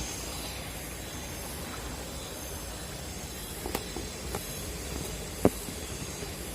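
Steady outdoor hiss with a faint high pulse repeating about once a second, a few light knocks, and one sharp click about five and a half seconds in.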